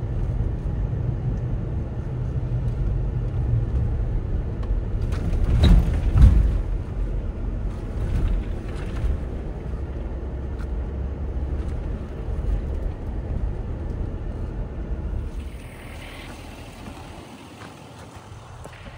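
Land Rover LR4 crawling over trail rock: a steady low engine and drivetrain rumble, with a few sharp knocks and scrapes about six seconds in and again around eight seconds. Near the end the rumble fades and a steady hiss takes over.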